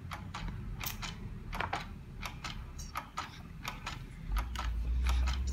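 Quick, irregular clicks, about three a second, from a baby sucking and smacking on a milk bottle. A low rumble swells near the end.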